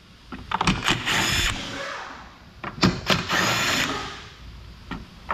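A power tool spinning out the 10 mm bolts of a plastic underbody cover through a socket on an extension. It runs twice for about a second each, with a few clicks in between.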